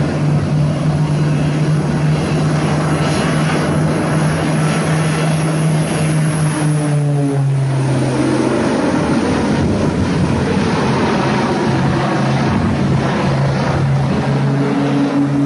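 Twin-engine propeller plane's engines droning loudly as it flies low overhead, with dense wind-like noise on the camcorder microphone. The drone dips in pitch a little past halfway through.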